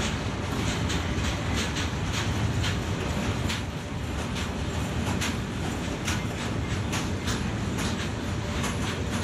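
Freight train of covered wagons rolling past: a steady rumble of wheels on rail with many irregular clicks and clanks from the wheels and couplings.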